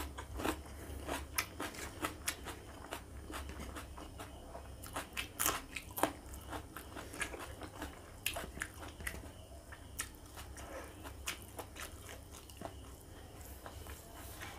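Close-up mouth sounds of chewing a mouthful of curry and rice eaten by hand: irregular smacks and clicks of lips and tongue, with no steady rhythm.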